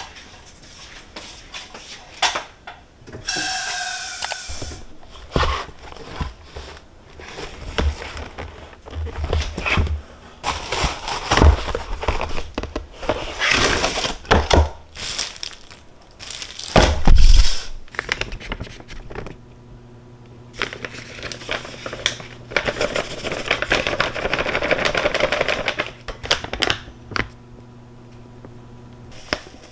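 Kitchen handling sounds: irregular knocks, clicks and taps of utensils and containers. A brief pitched sound comes a few seconds in, and a denser stretch of rustling or scraping comes toward the end. A low steady hum sets in about two-thirds of the way through.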